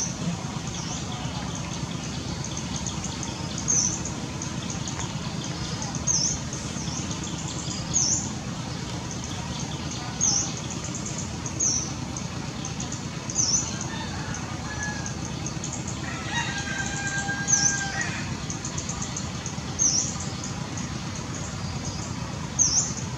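A bird gives short, sharp high-pitched chirps every two to three seconds, and a rooster crows once, about two-thirds of the way through. A steady low hum runs underneath.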